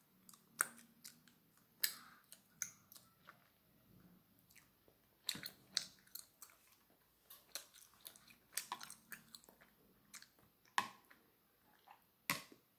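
Chewing of soft rice cakes (tteokbokki), with scattered sharp clicks from metal chopsticks tapping a plastic plate.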